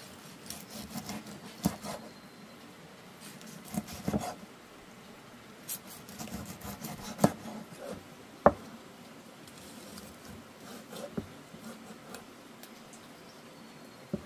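Irregular light clicks, taps and rustling, with two sharper knocks about seven and eight and a half seconds in.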